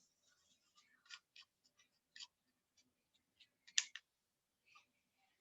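Faint, scattered small clicks and taps from handling painting materials while poster colours are mixed, with one sharper click about four seconds in.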